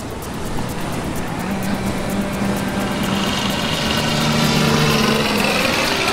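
Small motor sound effect for an animated RC plane and speedboat, rising in loudness and passing by, its pitch falling near the end.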